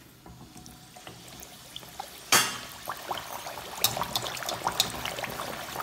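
A bhatura of maida dough dropped into hot oil in a kadai and deep-frying: the oil sizzles and crackles, with a sudden loud burst of sizzle about two seconds in and pops coming thicker toward the end.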